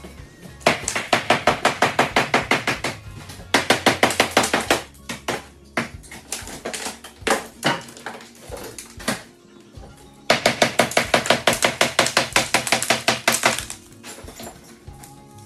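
Old ceramic tile being chipped off a kitchen countertop, heard as rapid sharp strikes of about nine a second in three bursts lasting one to three seconds, with a few single knocks between them.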